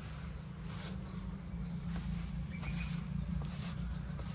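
Insects chirping steadily, over a constant low rumble.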